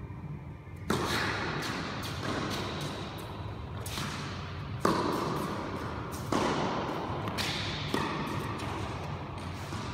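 Tennis ball struck with a racket and bouncing on the court and off the hall's walls: a serve about a second in, then several more sharp hits and lighter bounces, each ringing out in a long echo.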